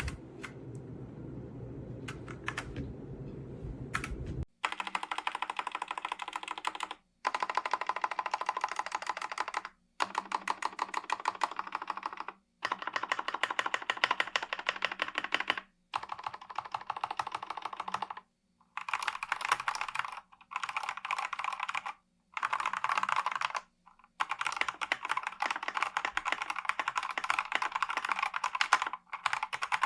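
Redragon K689 gasket-mount mechanical keyboard with linear switches being typed on fast. There are a few keystrokes over a low hum for about the first four seconds, then long runs of rapid clicking broken by short pauses.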